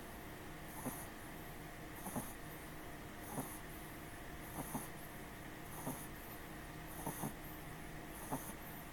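A sleeping pet snoring in short, regular snores, about one every 1.2 seconds, a few of them in two quick parts.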